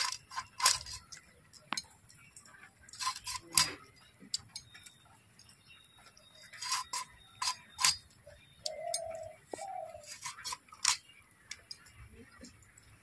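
Sharp knife clicks and knocks in irregular clusters as a skinned cuchia mud eel is cut into pieces. A short two-note squeak comes a little past the middle.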